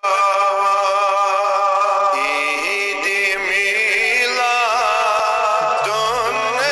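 A man's voice chanting a Kashmiri naat, a devotional song, unaccompanied in style: first one long held note, then melodic phrases that bend and waver.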